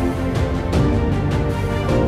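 Background music with a steady beat, several held pitched notes over a regular low pulse.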